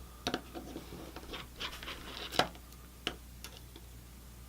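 Small screwdriver working a tiny screw out of a mini PC stick's circuit board: a handful of light, separate clicks and scrapes of metal on metal, the loudest about halfway through.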